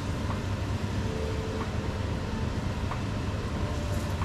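Steady rushing hum of a kitchen range-hood extractor fan running over a lit gas burner.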